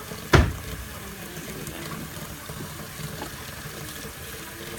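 Water running from a tap into a container, a steady rushing, with one sharp knock about a third of a second in.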